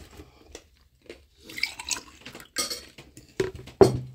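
Plates, glasses and cutlery clinking and knocking at a table as a meal is served: a handful of irregular clatters, the loudest shortly before the end.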